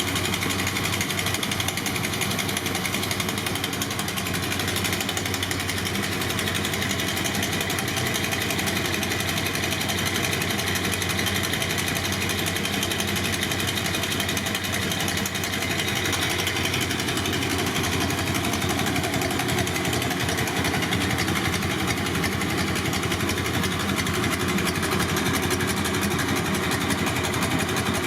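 BMW R60/7's air-cooled flat-twin boxer engine running steadily, with no revving.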